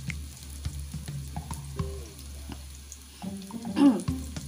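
Chopped onion frying in hot oil in a pan, with scattered crackles and pops over a steady low hum. A brief, louder pitched sound comes about four seconds in.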